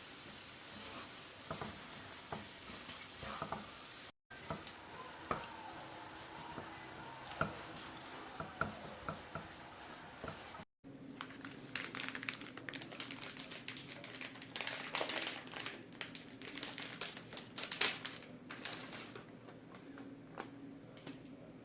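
Pie filling of bacon, pork, beef and vegetables sizzling in a frying pan, with a utensil clicking against the pan as it is stirred. After a cut about halfway through, a steady low hum comes in with a run of quick light taps and clicks.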